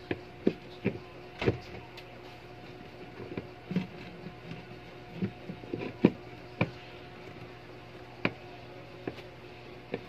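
Irregular hard plastic clicks and knocks as a washing machine's plastic pulsator is worked by hand on the wash tub's centre hub, over a steady low hum.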